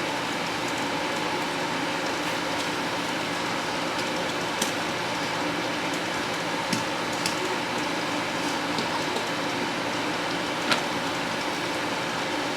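Steady room noise, like a running fan or air conditioner, with a few light clicks and taps scattered through.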